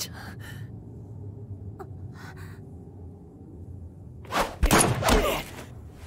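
Short, faint breathy gasps over a low steady hum, then about four seconds in a sudden loud burst, a thud mixed with a strained vocal effort, as in an anime scuffle.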